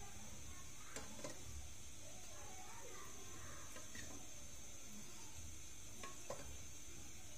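A few light clinks of a metal spoon against a ceramic plate as thick custard is spooned and spread, two close together about a second in and one more near the end, over a steady high hiss.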